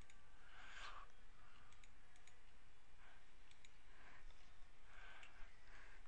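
A few faint computer mouse clicks, scattered, over a low steady hiss.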